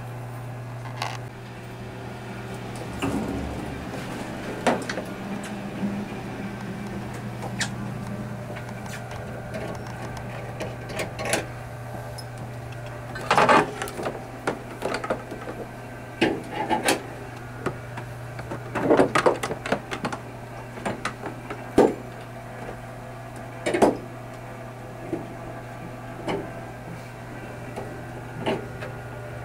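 Plastic water tubing and quick-connect fittings being handled against a portable water purifier's hard case: irregular clicks and knocks, bunched in the second half, over a steady low hum.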